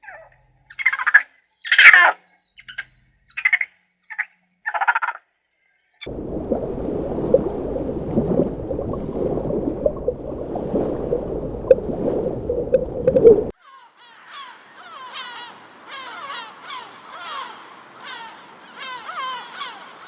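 Animal calls in three parts: a string of short separate calls, then a dense noisy clamour for about seven seconds that stops suddenly, then many quick high chirps in close succession.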